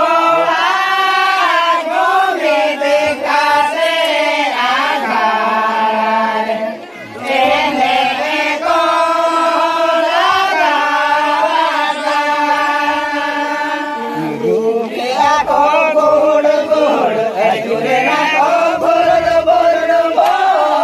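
A group of men singing a Santali Danta song together in unison, with long held notes that glide between pitches. The singing breaks off briefly about seven seconds in, then goes on.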